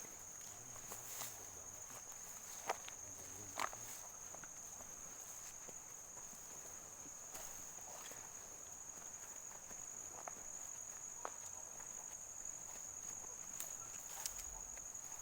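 Crickets trilling steadily at a high pitch, with a few footsteps and sharp clicks on the ground, the loudest about three and four seconds in.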